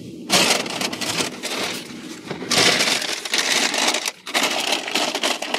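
Paper takeout bag rustling and crinkling as food is dug out of it, in three long stretches with brief breaks between.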